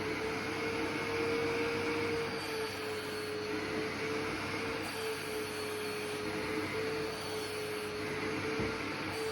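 Vacuum cleaner running steadily, its motor hum holding one pitch that wavers slightly, over a rushing of air.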